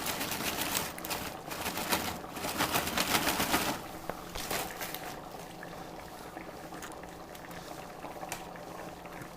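Dense crackling and crinkling for about the first four seconds as garlic croutons are handled and dropped onto a bowl of soup, then a quieter stretch with a faint steady hum.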